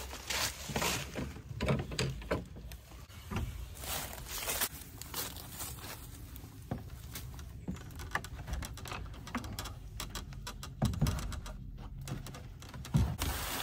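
Scattered knocks, scuffs and rustling from a man climbing over a wooden privacy-fence gate: hands and shoes bumping and scraping on the boards, with a few louder thumps near the start and toward the end.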